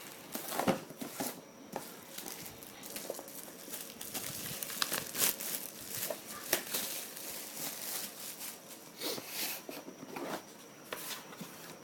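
Packaging crinkling and rustling in irregular bursts as a new wireless router is pulled out of its box.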